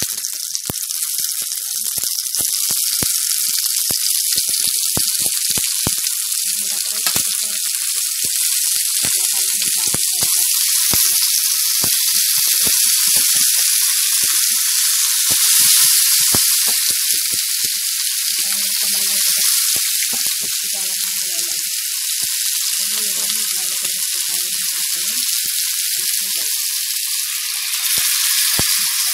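Chicken pieces frying in hot oil in a non-stick pan: a steady sizzling hiss with frequent sharp pops and crackles. Near the end the sizzle flares a little louder as dark teriyaki sauce is poured onto the chicken.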